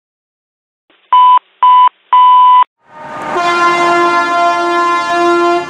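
Three loud beeps at one steady pitch, two short and one longer, then a fire engine's air horn blowing a steady, unbroken chord of several tones, sounded to clear traffic on an emergency response.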